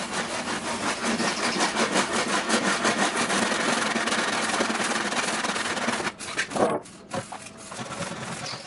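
Hand saw cutting through a wooden plank (batten for a truck body) in steady back-and-forth strokes; the sawing stops about six seconds in, followed by a single knock.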